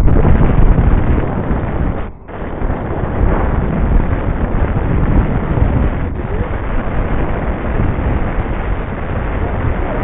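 Wind rushing over the microphone of a helmet camera in paraglider flight: a loud, steady roar, strongest in the low end, that drops out briefly about two seconds in.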